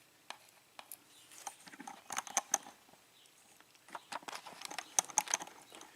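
Faint, sharp clicks and taps from small brass lock pins being handled and arranged, coming in two clusters, one about two seconds in and one about four to five seconds in.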